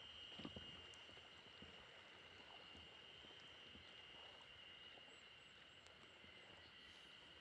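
Faint, steady, high-pitched chorus of Japanese spring cicadas (haruzemi) from the wooded shore, with a couple of faint knocks about half a second in.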